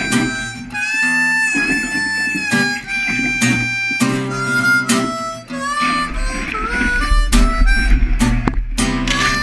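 Background music: a melody of held, bending notes over strummed chords.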